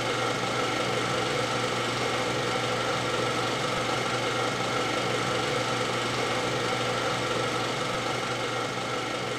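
Film projector sound effect: a steady mechanical whirr.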